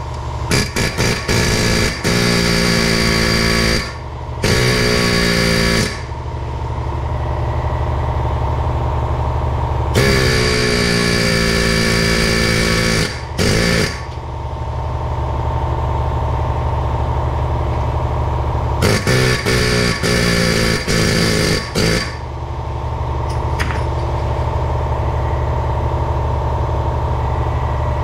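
Pneumatic air hammer with a pointed pin bit firing in several bursts of one to three seconds, knocking the axle shaft back through the wheel hub, over the steady drone of a running air compressor.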